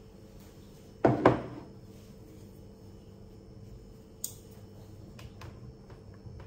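A ceramic bowl set down on a countertop: two quick knocks about a second in with a short ring, then a faint click a few seconds later.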